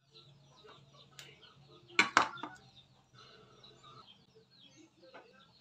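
Two sharp knocks close together about two seconds in, with another near the end, over faint bird chirps and a low steady hum.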